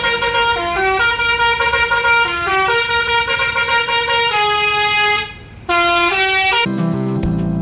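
Telolet basuri bus horn playing a tune of held notes that step from pitch to pitch, breaking off briefly about five seconds in. Near the end it gives way to strummed guitar music.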